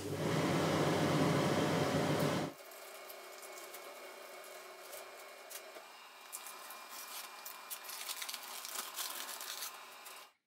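The enclosure's exhaust fan, switched on with a click, runs with a loud steady whir and hum, then stops abruptly after about two and a half seconds. A quieter hum follows with light knocks and rattles as the box's plywood top lid is lifted open.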